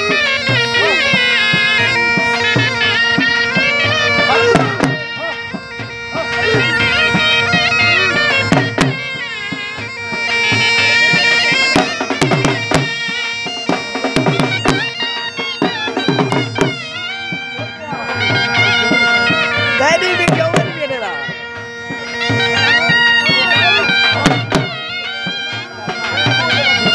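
Live folk music for a jhumar dance. Droning reed pipes play a wavering melody over a steady held drone, with drum beats cutting through.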